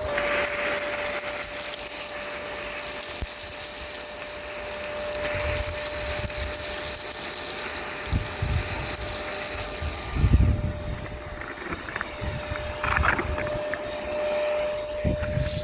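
Miele Complete C2 Tango EcoLine canister vacuum running, a steady motor whine under an airy rush of suction, with a few low bumps around eight and ten seconds in. The rush drops away about eleven seconds in and comes back near the end.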